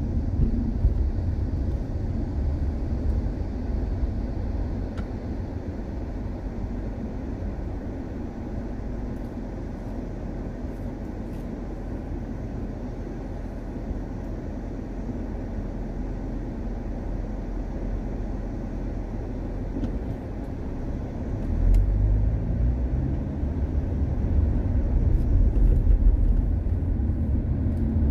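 A car driving on the road: a steady, deep noise of tyres and engine that grows louder about 22 seconds in and again near the end.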